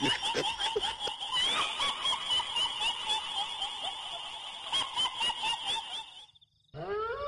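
Shrill, high-pitched cackling laughter of a kuntilanak ghost sound effect, wavering in rapid pulses. It cuts off abruptly about six seconds in. Just before the end a long wail begins, rising in pitch.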